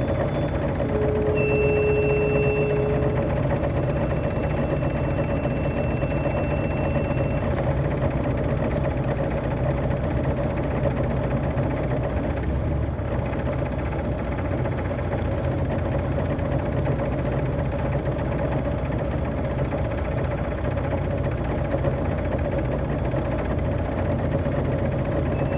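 Detroit Diesel Series 60 engine of a 2002 MCI D4000 coach bus running at a steady speed, heard from on board. Near the start a thin high tone is held for several seconds over the engine.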